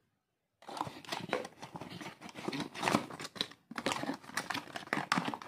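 Cardboard box of an LED downlight being handled and packed with the lamp: a dense run of rustling and small knocks, starting about half a second in, with a brief pause just past the middle.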